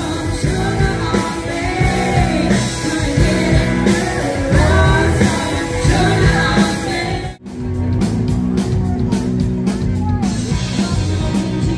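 Rock-and-roll band music with a singer. About seven seconds in it cuts off abruptly and another song takes over.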